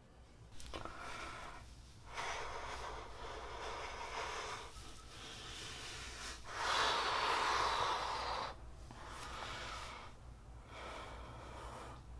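A man breathing heavily: about six long, noisy breaths one after another, the loudest from about six and a half to eight and a half seconds in.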